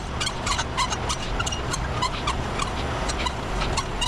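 Semi-trailer landing gear being hand-cranked: a quick, even run of clicks from the crank and its gearing, about four a second, over a steady low rumble.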